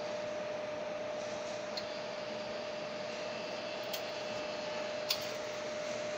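Claw machine running during a grab: a steady hum with one held tone, and a few faint clicks from the claw mechanism.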